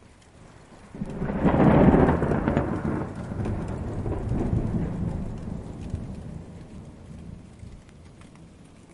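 A thunderclap breaks about a second in and rolls on as a long, deep rumble that slowly fades away, over a faint patter of rain.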